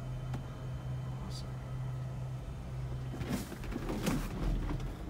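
A steady low hum that fades about three seconds in, followed by a brief stretch of rustling.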